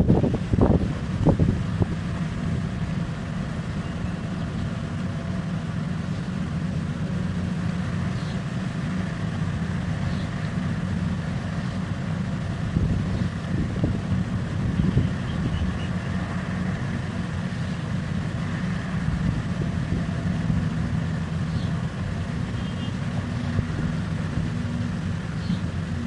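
Heavy mining machinery running, a large diesel engine droning steadily. There are a few louder knocks in the first second or two.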